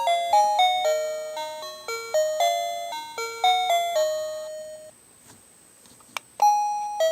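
Plug-in wireless doorbell receiver playing one of its chime melodies: a quick tune of electronic bell notes, each ringing out and fading, which dies away about five seconds in. After a click, a two-note ding-dong starts near the end.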